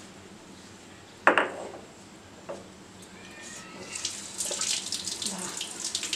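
A sharp knock about a second in, then from about halfway tap water splashing onto a stone grinding slab as wet ground poppy-seed paste is rinsed and gathered by hand.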